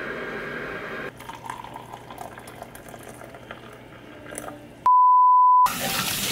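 Faint clinks and hot water poured from an electric kettle into a glass mug, then a single steady electronic beep of under a second that cuts out all other sound, followed by a kitchen faucet running over dishes in the sink.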